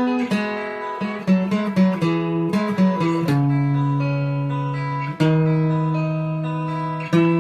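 Background music on acoustic guitar: a run of quick plucked notes, then two long chords left ringing, one after the other.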